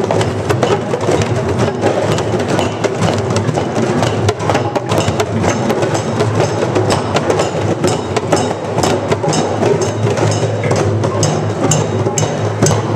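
A group of djembes and other hand drums played together by many players, a dense, steady stream of hand strikes.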